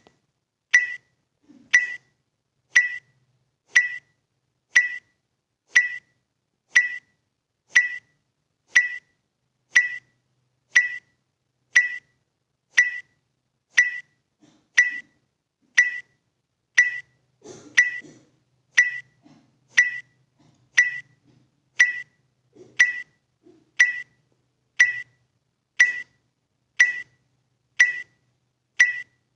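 Short, sharp ticks repeating evenly about once a second, a metronome-like pacing beat keeping time for kapalabhati breath strokes.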